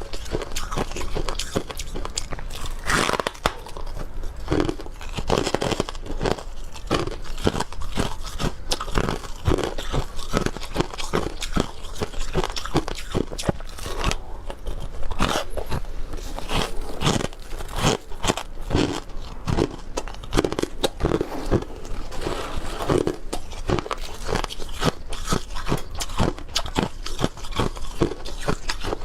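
Dry freezer-frost chunks being bitten and chewed close to the microphone: a continuous run of sharp, squeaky crunches, several a second.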